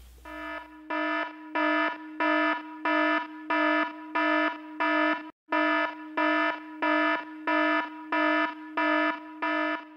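Alarm buzzer sound effect beeping in a steady rhythm, about one and a half buzzy beeps a second, with a brief break about halfway through.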